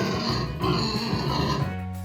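Pig calls in two harsh stretches of about a second each, the second ending shortly before the end, over background music.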